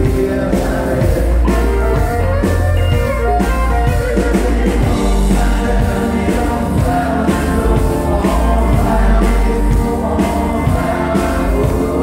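Live band playing loudly over a steady beat, with a man singing, electric guitars and a fiddle.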